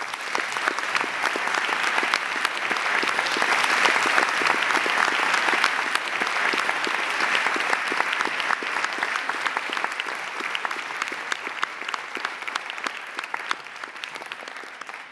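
Audience applauding, swelling over the first few seconds and then slowly dying away.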